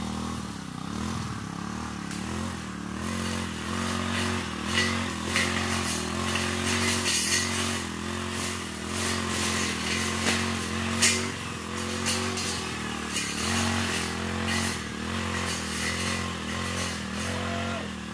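Backpack brush cutter's engine running steadily at working speed as it cuts undergrowth, with a few sharp cracks now and then.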